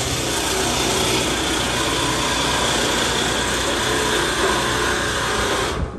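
A machine running steadily and loudly, a motor or engine, that cuts off shortly before the end.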